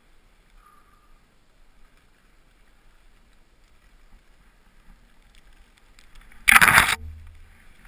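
Faint noise of a rider moving through powder snow. About six and a half seconds in comes a loud half-second rush and crackle as snow-covered fir branches brush across the camera, followed by a short low rumble.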